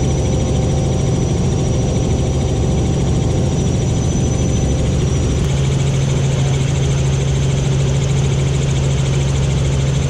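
Helicopter running at a steady drone, with a thin high whine over a strong low hum; the whine fades and the hum shifts slightly about halfway through.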